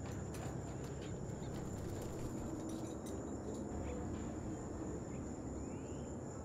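Evening outdoor ambience: crickets trilling steadily in one high, unbroken tone over a low, steady rumble, with a few faint ticks and a short rising chirp near the end.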